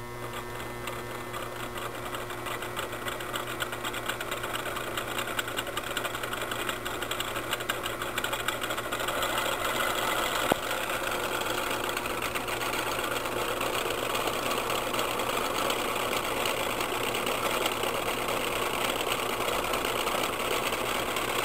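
Homemade three-phase induction motor with a coffee-can rotor spinning up after power-on: a rapid mechanical rattle and whir. It grows louder over the first ten seconds or so as the rotor gathers speed, then holds steady at roughly 530 RPM, over a steady low hum.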